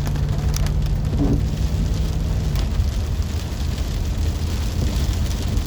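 Van driving in the rain: a steady low road and engine rumble, with scattered raindrops tapping on the body. A low steady hum fades out about two and a half seconds in.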